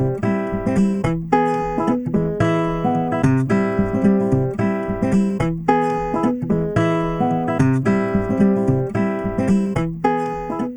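Outro music: strummed acoustic guitar at a steady rhythm.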